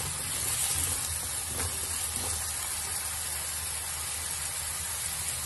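Diced potatoes sizzling steadily in hot mustard oil in a kadhai, with a few light scrapes of a wooden spatula turning them in the first couple of seconds.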